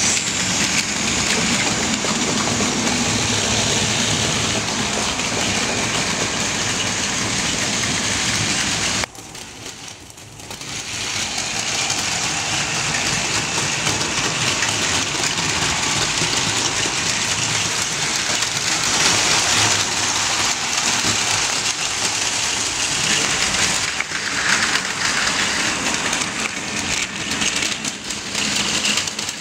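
Plarail Advance battery-powered toy Shinkansen trains running on plastic track: a steady whirring of small geared motors mixed with the rattle of wheels on the plastic rails. The sound drops away suddenly about nine seconds in, then builds back up over a second or two.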